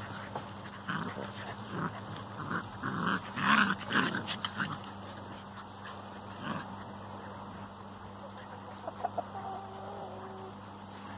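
Livestock guardian puppies making short yips and growls as they play-fight, with a loud cluster about three to four seconds in and a few scattered calls later.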